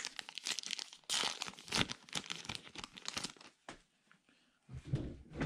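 The wrapper of a 2019 Heritage Minor League baseball card pack being torn open and crinkled by hand: a dense run of crackling for about three and a half seconds, then a short pause and a little more handling near the end.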